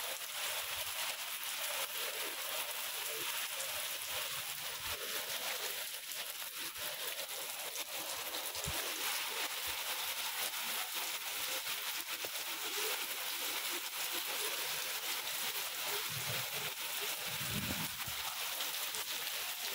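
Heavy rain falling in a steady hiss, with a few soft low thumps near the end.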